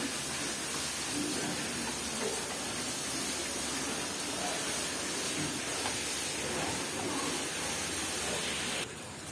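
A steady hiss with a few faint short grunts from piglets feeding; the hiss cuts off suddenly near the end.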